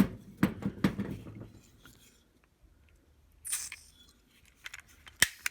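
Clicks and knocks from handling a butane soldering torch and its refill can, bunched in the first second and a half, with a short hiss about three and a half seconds in and two more sharp clicks near the end.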